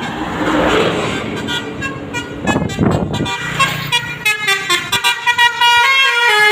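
Basuri multi-tone 'telolet' bus horn playing a stepping melody of held notes, with a rushing noise about two and a half to three seconds in. From about three and a half seconds the horn plays a fast run of short staccato notes.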